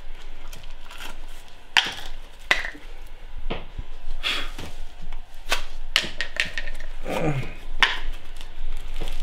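Foam-bead slime being kneaded and squeezed by hand, two lumps worked together, giving irregular crisp clicks and crackles.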